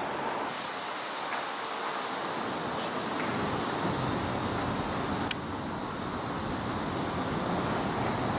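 Cicadas droning steadily in a high, even hiss, over a low outdoor rush of wind and street noise.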